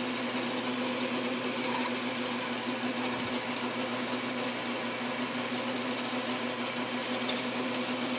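South Bend 9-inch lathe running at a steady speed, its motor and spindle giving a constant hum, while the drill bit in the headstock chuck turns and is fed into an aluminum pulley.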